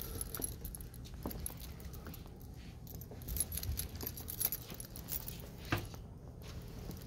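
Footsteps on a vinyl-tile floor with a light jingling of a key ring carried while walking, and one sharper click near the end.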